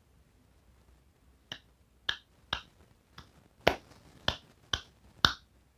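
Fingers snapping about eight times, roughly two snaps a second, starting about a second and a half in, made close to a sound-detection sensor module to trigger it.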